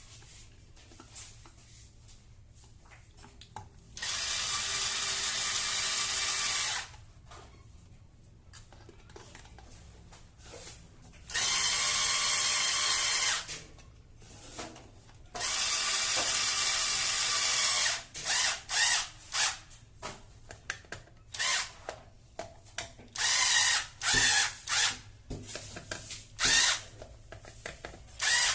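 Power drill driving a screw: three runs of two to three seconds each, then a string of short bursts near the end as the screw is run home, here fixing a replacement wall socket.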